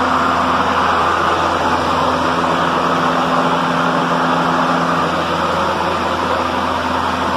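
Ryobi 40-volt 20-inch brushless battery lawn mower running with its blade spinning: a steady hum under an even rush of air. It keeps running without cutting out, with the faulty safety switches replaced by a toggle switch and a momentary button.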